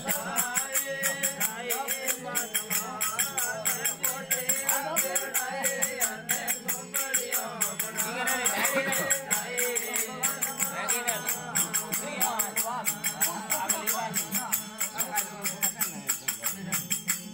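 Rajasthani devotional bhajan: a male voice singing over a steady harmonium and tandura drone, with a fast, even jingling rhythm from hand percussion.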